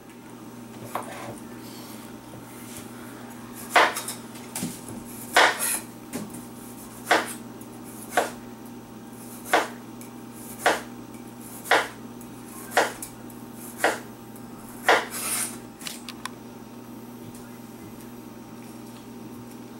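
Kitchen knife knocking on a wooden cutting board while a kiwi is cut: about ten sharp knocks, roughly one a second.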